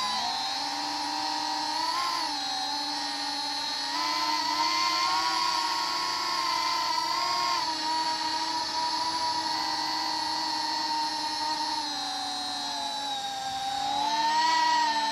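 Holybro Kopis 3-inch cinewhoop quadcopter's motors and ducted propellers whining in flight, recorded on board. The pitch wavers up and down with the throttle and rises and grows louder near the end.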